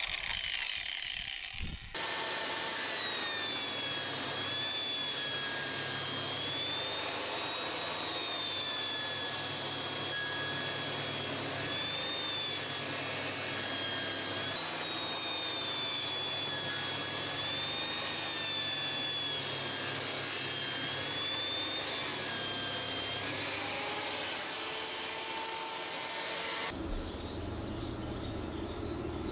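A power tool's motor runs steadily with a high whine that wavers slowly up and down, stopping abruptly near the end.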